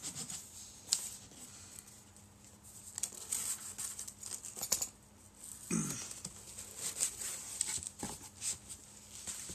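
Cardboard boxes being handled: a small inner cardboard box lifted out of a larger shipping box and its lid opened, with irregular scraping, rustling and light knocks of cardboard.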